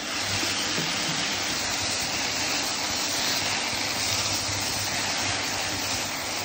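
Sliced button mushrooms and porcini sizzling in oil in a frying pan, a steady loud hiss that starts as the porcini go in.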